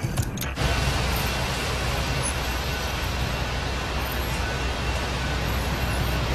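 City street traffic on a wet road: a steady low rumble of engines under an even hiss of tyres and rain on wet pavement, coming in abruptly about half a second in.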